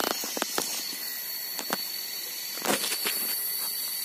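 Footsteps on dry leaf litter and sticks on a forest floor: a handful of separate crackles and snaps, over a steady high-pitched tone.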